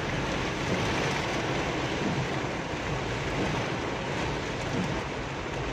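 Heavy rain beating steadily on a car's roof and windscreen, heard from inside the cabin, with the moving car's low running noise beneath it.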